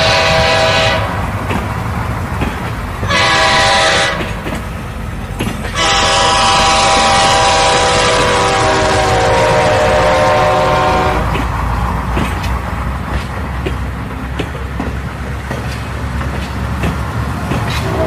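Train horn sounding three blasts: one ending about a second in, a short one around three seconds, then a long one that falls in pitch as the train passes. After the horn stops, the train rumbles and clatters past on the rails.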